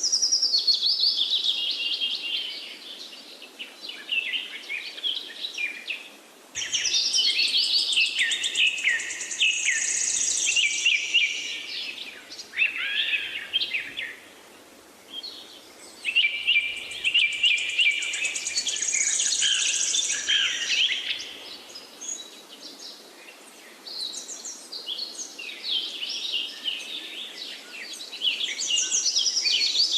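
A chorus of several birds chirping and trilling at once, coming in busy bouts that start abruptly and ease off between them.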